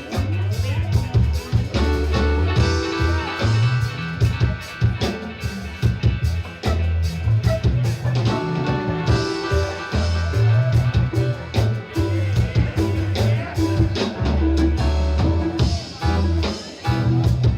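Rock band music: electric guitar over a heavy bass line and a drum kit playing a steady beat.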